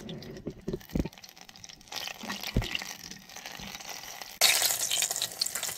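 Bannock dough deep-frying in hot oil in a tin can on a wood stove, with a couple of knocks of a metal spoon against the can. About four and a half seconds in, a loud sizzle starts suddenly and carries on. The oil is running hotter than the usual medium heat.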